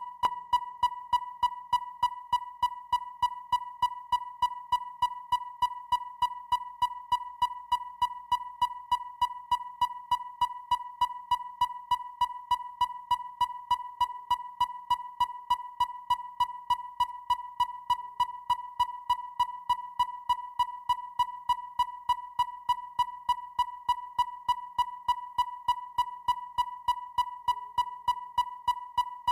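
Electronic depth finder (sonar) sound effect: a steady high beep tone pulsing with sharp, evenly spaced ticks about three times a second.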